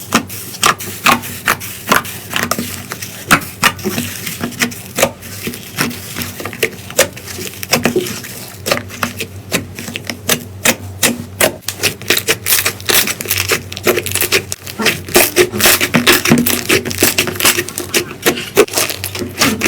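Slime being squeezed and worked by hand, making a dense run of sharp clicks and crackles that grows busier about halfway through.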